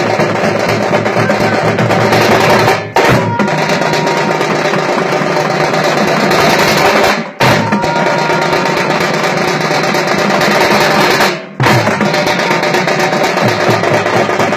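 A group of thamate frame drums beaten with sticks in a fast, dense, continuous rhythm, with three brief dropouts in the sound.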